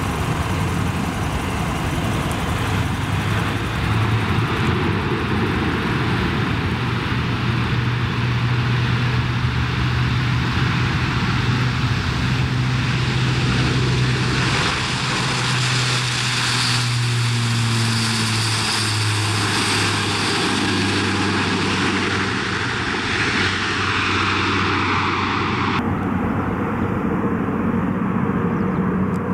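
Airbus A400M's four turboprop engines with eight-bladed propellers running at takeoff power through the takeoff roll and climb-out: a loud, steady drone with a low propeller hum. The high hiss drops away abruptly near the end.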